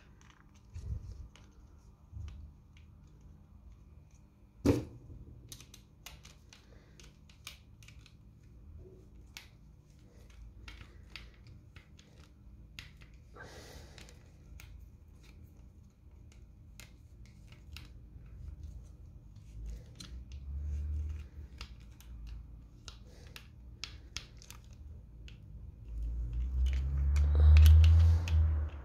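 A hand screwdriver driving a screw into a 3D-printed plastic part, with the parts handled: scattered small clicks and scrapes, one sharp click about five seconds in. Near the end, a loud low rumble of handling noise.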